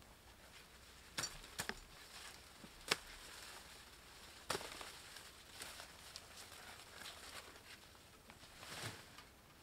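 Corn stalks being cut by hand with a blade: a few sharp chops and snaps, the loudest about three seconds in, then a rustle of leaves near the end as the cut stalks are gathered up.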